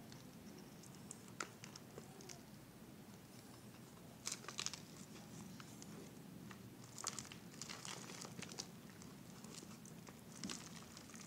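Quiet crinkling and crackling of a plastic bottle being handled and potting soil being worked into it by hand, coming in scattered bursts about four, seven and ten seconds in, over a low steady hum.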